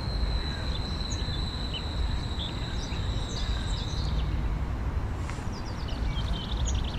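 Small birds singing and chirping in a spring park over a steady low rumble, with a fast repeated trill near the end. A thin, steady high tone runs through the first four seconds or so.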